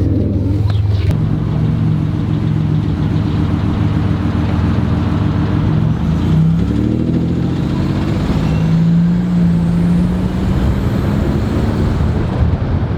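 Buick Grand National's turbocharged V6 running through a Pypes exhaust while driving. It has a deep, subtle rumble, and its pitch climbs a little past the middle and then holds steady.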